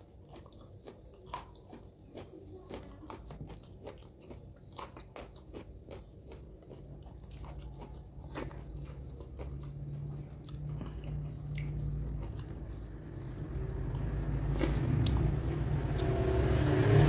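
Close-miked eating of raw vegetables: biting and chewing with many small sharp crunches and wet mouth clicks, getting denser and louder over the last few seconds.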